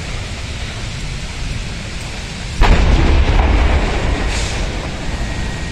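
A gas cylinder exploding in the fire: a sudden loud boom about two and a half seconds in that rolls on and fades over the next three seconds, over a steady background hiss.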